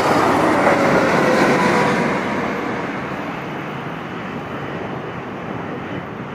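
Boeing 777-300ER's twin GE90-115B turbofans at approach power passing low overhead: a jet roar with a whine that slides down in pitch as it goes by, then fading over the second half as the airliner moves away.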